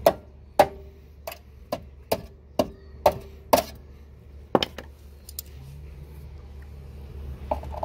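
Rubber mallet hammering the cut sheet-metal lip of a car's rear wheel well to bend it back. About ten sharp blows come roughly two a second and stop about five seconds in.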